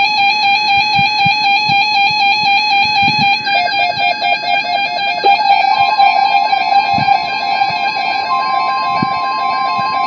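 Electronic weather-radio alert tones for an Emergency Alert System alert: a loud, fast warbling alarm that flips rapidly between two pitches, with a second warble layered in about three and a half seconds in. A steady high tone joins about six seconds in and grows louder near the end. That steady tone is the NOAA Weather Radio 1050 Hz warning alarm tone that comes before a watch or warning message.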